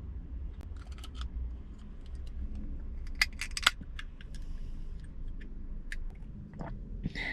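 Scattered light clicks and clatters of small objects being handled, with a burst of sharper clicks about three seconds in, over a steady low rumble.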